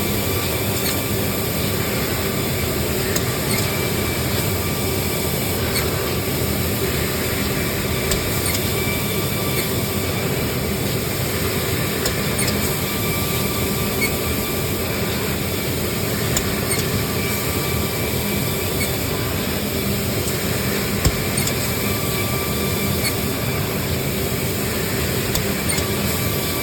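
Automatic edge banding machine running: a steady mechanical hum and rush with faint whining tones and scattered light clicks. A single sharp knock about 21 seconds in.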